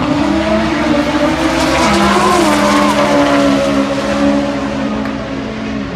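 Turbocharged 4G63T four-cylinder of an all-wheel-drive automatic 1G DSM drag car at full throttle down the quarter mile. Its pitch rises off the line, then drops a step about two seconds in at a gear change, and the sound fades as the car pulls away.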